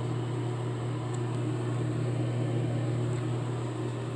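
Steady low hum with a faint hiss above it.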